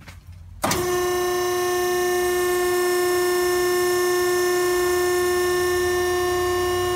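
An Endless Pool hydraulic power unit, an electric motor driving a pump, switches on about half a second in and runs with a steady, high-pitched whine at one constant pitch. This is the primary left-side unit, which works fine, so this is its normal running sound.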